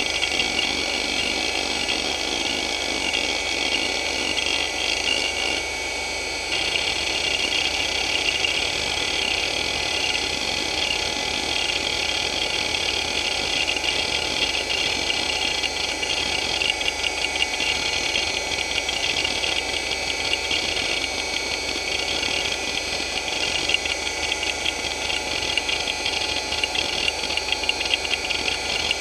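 Hitachi DK225A-14 two-platter 2.5-inch hard drive seeking continuously under the hdmotion test: the head actuator chatters in rapid ticks over the steady whir of the spinning platters. The sound dips briefly about six seconds in, then resumes a little louder.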